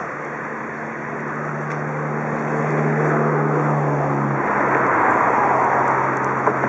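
A low, steady mechanical drone that drops slightly in pitch about four and a half seconds in, with a hiss swelling up over the second half.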